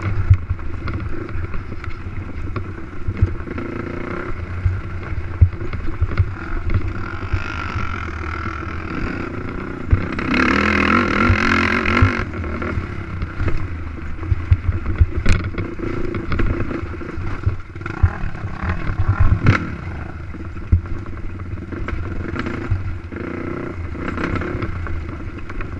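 Race quad's engine running hard through a rough motocross track, the revs rising and falling, with frequent knocks and clatter from the machine hitting bumps. It revs higher and louder for about two seconds around the middle.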